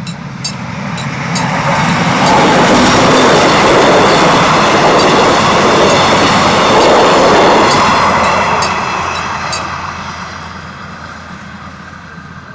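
A train passing over a level crossing: the rumble and rail noise build up over the first two seconds, stay loud for several seconds, then fade away near the end. At the start the crossing's warning bell dings about twice a second.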